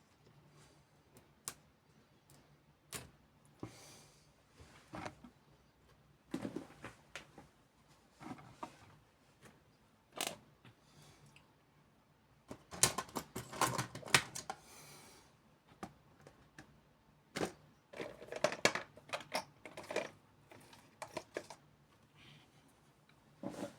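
Irregular clicks and light taps of small repair tools and phone parts being handled during an iPhone 8 Plus teardown, with a denser flurry of clicking about halfway through and another a few seconds later.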